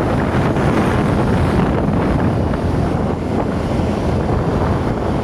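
Wind rushing over the microphone of a moving vehicle, with a steady low rumble of road and engine noise beneath it.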